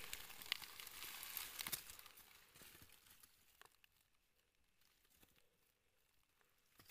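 Faint crackling and rustling of dry leaf litter over a fading hiss, dying away to near silence after about two seconds.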